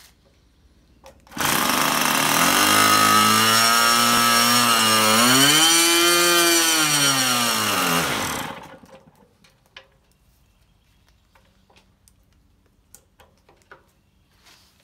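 Tower Hobbies .75 nitro (glow) two-stroke model-aircraft engine, spun up with an electric starter, running loudly for about seven seconds. Its pitch rises and then falls before it dies out. Small handling clicks follow.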